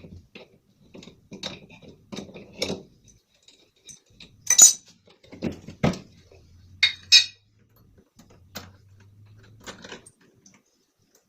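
Hand tools clinking and knocking on metal as the nut holding the pulley on a washing machine's transmission shaft is taken off. There are irregular sharp metallic clicks throughout, the loudest a little past halfway.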